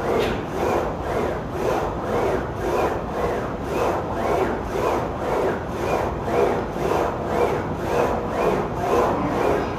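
Plate-loaded leg press sled running up and down its rails through a set of repetitions: a rubbing, grinding sound that swells and fades with each push and return, in a steady rhythm.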